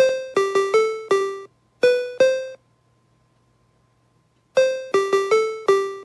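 SN76489 sound-generator chip playing an RTTTL ringtone melody through a portable speaker: short square-wave beeps, each starting sharply and fading out as the chip steps down its attenuation levels to set the note length. A phrase of eight notes, a pause of about two seconds, then the same phrase starts again about four and a half seconds in as the sketch loops.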